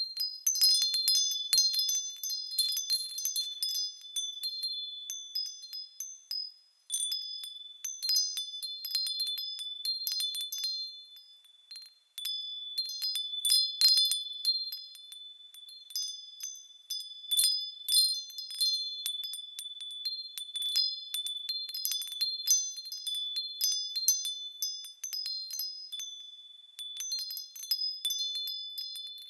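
Small high-pitched bells chiming as they swing, with irregular strikes and overlapping ringing tones. The ringing twice dies away almost to nothing before new strikes start again.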